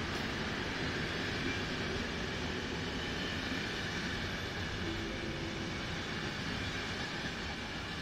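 Passenger coaches of an express train rolling past on the rails, a steady wheel-and-rail noise that eases slightly as the last coach goes by.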